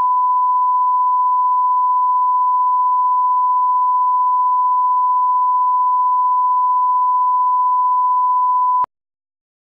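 Broadcast line-up tone: a single steady 1 kHz reference tone of the kind laid under colour bars at the head of a tape. It cuts off suddenly about a second before the end.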